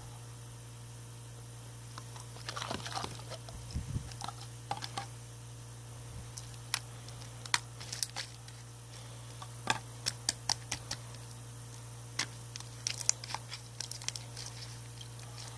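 Slime being squished and pressed by hand, with sharp little clicks and pops scattered irregularly through it, over a steady low hum.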